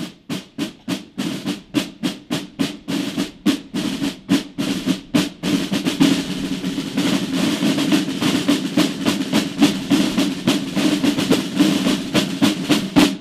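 A corps of rope-tensioned side drums playing together: separate strokes that quicken over the first few seconds into a continuous roll with accents, which stops abruptly near the end.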